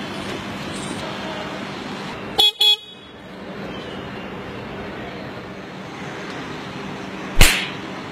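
A vehicle horn gives two short toots over steady street and engine noise, then a single loud, sharp smack near the end.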